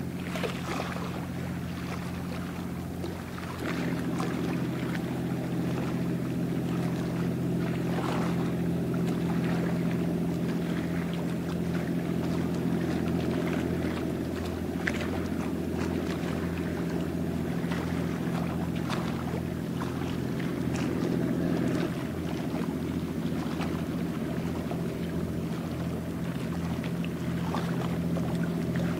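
Ship's engine running with a steady low drone that gets louder about three seconds in, with water washing from the bow wave.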